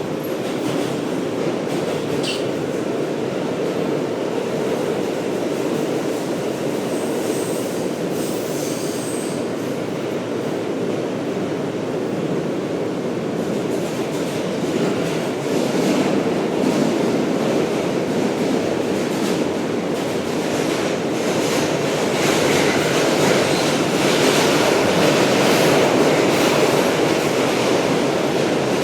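Steady loud rumble of a vehicle in motion, with a brief high squeal about two seconds in.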